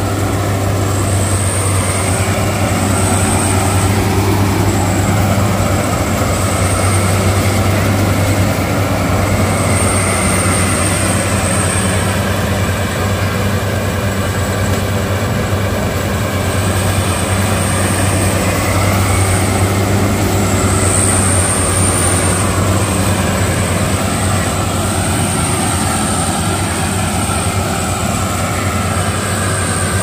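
Bimo tracked rice combine harvester running steadily at close range while working the paddy, its engine and machinery making a constant heavy hum.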